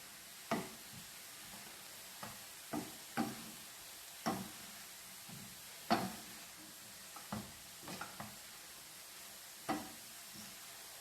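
Spoon stirring vegetables in a pot, knocking and scraping against its side at irregular moments, over a steady faint sizzle of the vegetables frying in oil.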